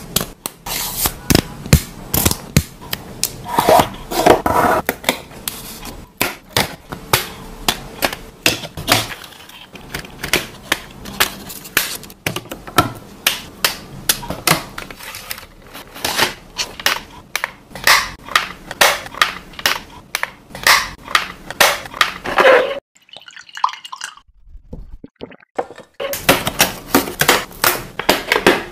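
Thin laser-cut plywood puzzle pieces clicking and tapping as they are pressed and slotted together, in quick, irregular clicks. A few seconds of near quiet come near the end before the clicking resumes.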